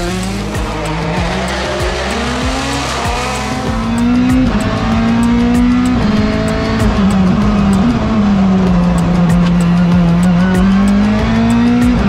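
Ford Puma Rally1 Hybrid rally car engine driven hard, its pitch repeatedly rising and falling as it revs up and drops through gear changes, with many sharp crackles.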